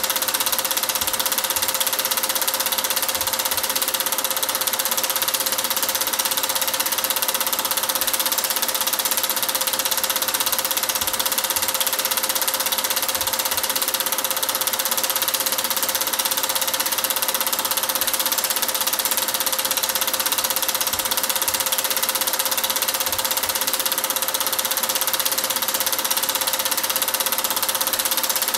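Cine film projector running: a steady mechanical whir with one constant tone in it, unchanging throughout.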